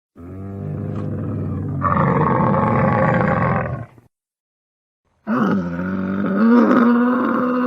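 Camel vocalising: a low, rough groaning call lasting nearly four seconds that rises partway through, then, after about a second of silence, a second call with a steadier moaning pitch.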